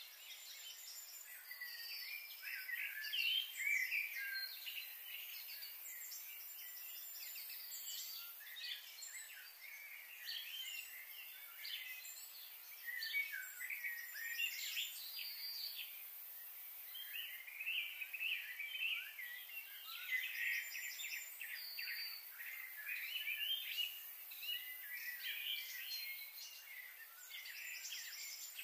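A chorus of small birds chirping and singing, many short high calls and trills overlapping one another.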